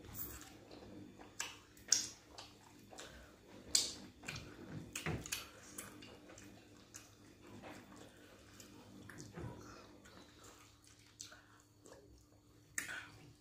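Close-up wet eating sounds: lip smacks, chewing and finger-licking as pounded yam and pepper soup are eaten by hand, with scattered sharp smacks a few seconds apart.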